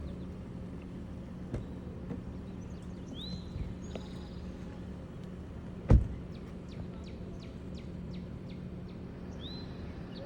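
Outdoor ambience with a steady low hum and two short rising bird chirps, a few seconds apart. One loud thump about halfway through stands out above it.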